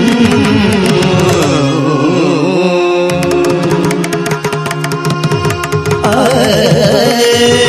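Carnatic-style devotional music: a melodic line with wavering, ornamented turns over a steady drone and hand-drum strokes.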